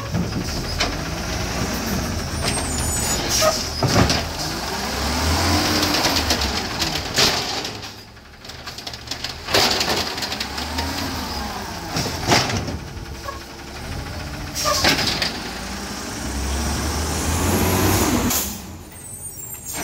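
Autocar WX garbage truck's natural-gas engine revving up and down several times to drive the hydraulics of its Amrep automated side-loader arm as it lifts and dumps carts, with sharp bangs and air-brake hisses in between.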